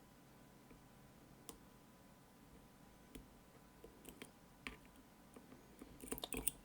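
Faint, scattered clicks of a lock pick working the pins of an Assa Guideline lock held under tension, with a quick run of clicks about six seconds in.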